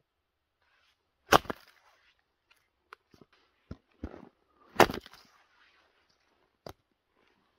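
Axe splitting firewood on a chopping block: two sharp, loud chops about three and a half seconds apart, with a few lighter knocks of wood between and after.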